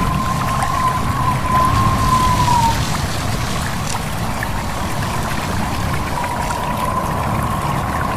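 A stream running steadily, with a thin, slightly wavering whistle of wind over it that fades out about three seconds in and returns about six seconds in.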